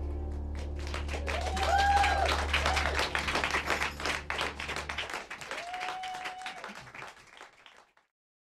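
Audience clapping and cheering at the end of a song, with a few whooping calls, over a low held hum that stops about five seconds in. The applause fades out near the end.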